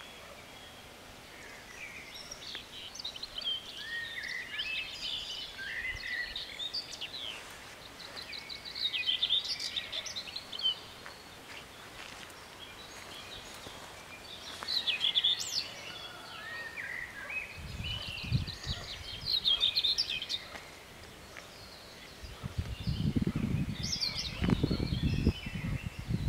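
Small birds singing and chirping in repeated short phrases. In the second half, irregular bursts of low rumble come in twice and are louder than the birdsong.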